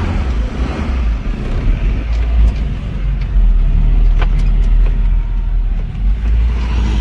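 Maruti Gypsy heard from inside its cabin while driving slowly over sand: a steady low engine and road rumble, growing louder about halfway through, with a few sharp clicks and rattles.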